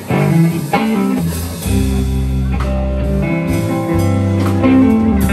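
A live band plays a slow blues intro with no singing: electric guitar over bass guitar, with deep bass notes returning about two seconds in.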